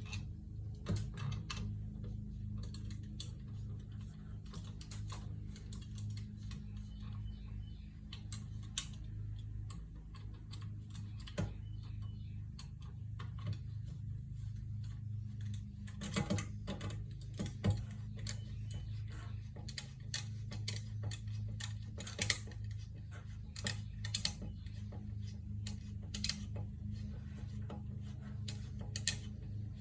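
Scattered light clicks and taps, irregular and thicker in the second half, over a steady low hum.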